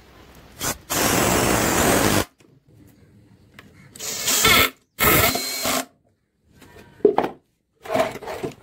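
Power drill with a screwdriver bit driving screws into a board: one long run of about a second, then two shorter runs a little later. A few shorter, lighter sounds follow near the end.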